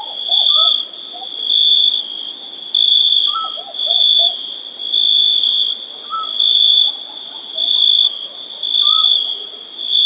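Crickets chirping in an even pulse, each trill about half a second long and repeating roughly once a second, about ten times. Faint short chirps at a lower pitch come every couple of seconds underneath.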